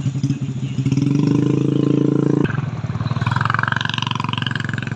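Motorcycle engines running with a pulsing rumble, growing louder under throttle about a second in, then breaking off abruptly halfway through and going on at a steadier level.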